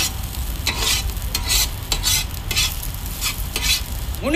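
A metal ladle scraping and stirring a crumbled egg mixture in a large wok, with frying sizzle underneath. The scrapes come irregularly, roughly two a second.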